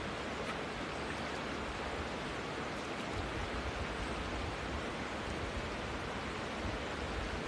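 A river flowing, a steady, even rush of water.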